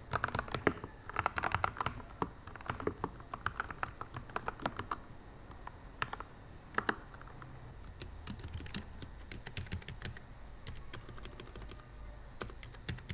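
Keys being typed on a keyboard: quick runs of key clicks, thinning out in the middle and picking up again for the last few seconds.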